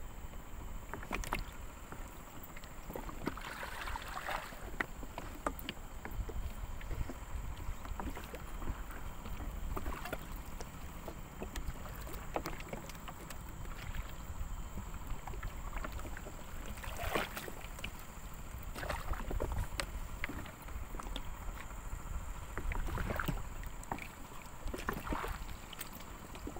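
Water splashing and sloshing in irregular strokes, a few seconds apart, with scattered small knocks over a steady low rumble.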